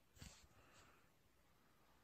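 Near silence: room tone, with one faint short puff of noise near the start.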